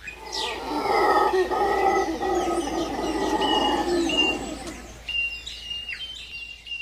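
A troop of howler monkeys howling together, fading out about five seconds in, with birds chirping and whistling throughout.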